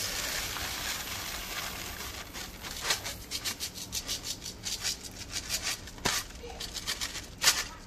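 Dry rice grains pouring out of a cardboard Uncle Ben's rice box into a pot of sauce. From about two seconds in, the box is shaken in a quick, uneven run of scratchy rattles, with a few louder knocks.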